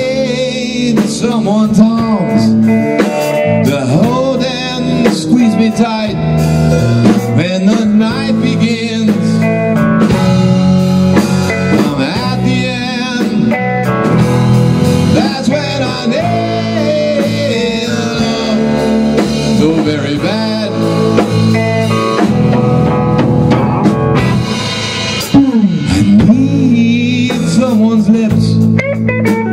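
Live band playing electric guitar, electric bass and a Tama drum kit together, the guitar bending notes over the steady bass and drums.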